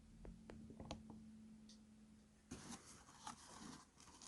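Faint handling noise, close to silence: a few light clicks, then soft rustling and tapping from a little past halfway.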